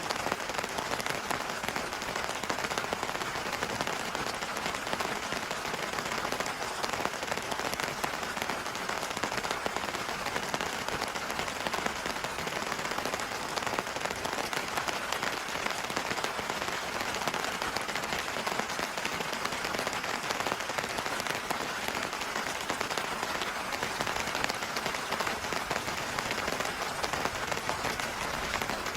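Heavy rain pattering steadily on a surface: a dense, even hiss of countless drops with no let-up.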